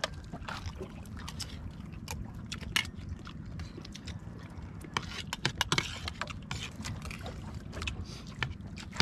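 Water sloshing against a small fishing boat over a steady low rumble, with scattered clicks and knocks that are busiest about five to six seconds in.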